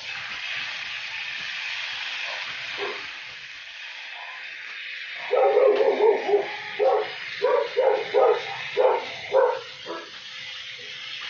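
Steady sizzling hiss of brisket on a hot plate. About five seconds in, a run of short, high cries begins, about two a second, louder than the sizzle.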